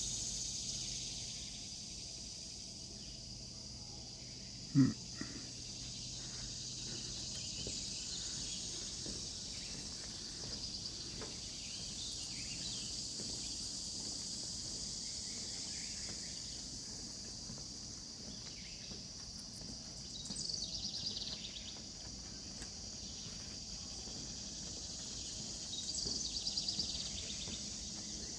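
Steady high-pitched chorus of summer insects, swelling louder briefly twice in the second half, with a single short thump about five seconds in as the loudest sound.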